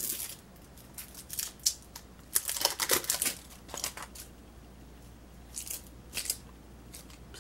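Lipstick packaging being opened by hand: several short, irregular bursts of crinkling and tearing.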